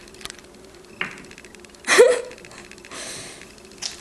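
A ball knocking on the pool table as a dog plays with it: a small click, then a sharp knock about a second in. About halfway there is a louder hit with a short cry that rises in pitch, followed by a soft hiss and one more click near the end.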